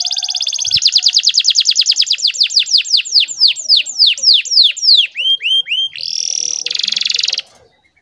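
Domestic canary singing a long, fast roll of rapid repeated high notes that slows into separate falling sweeps, then two buzzy phrases, cutting off about seven and a half seconds in.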